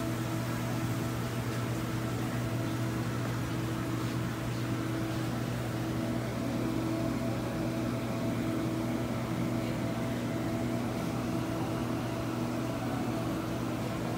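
Steady machinery hum: a strong low drone with a few fainter held tones above it over an even hiss.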